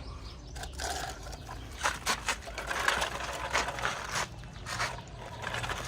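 Small plastic toy tractor handled and pushed along by hand, its wheels and body rattling with irregular clicks and scrapes.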